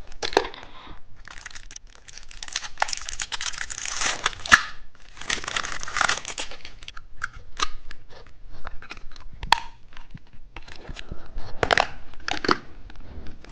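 Plastic candy packaging being torn open and crinkled by hand: long stretches of rustling with scattered sharp crackles and clicks.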